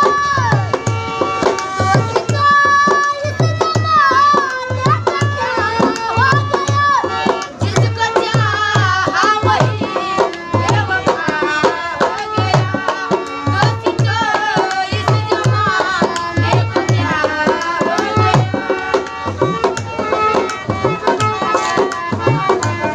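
Live Indian folk music: a dhol keeps a steady beat under a melody with harmonium accompaniment.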